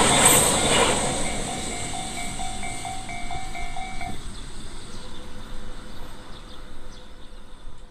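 A train's running noise dies away over the first second, while the level crossing's electronic warning bell (Tobu "sound C" type) chimes about three times a second, then stops about four seconds in as the crossing clears.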